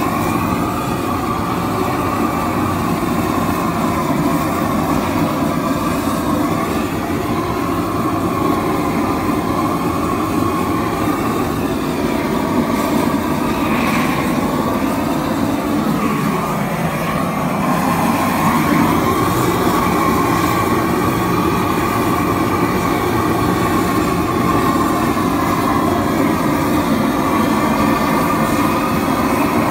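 Propane roofing torch burning steadily: a loud, even rush with a wavering tone over it that dips in pitch briefly about halfway through.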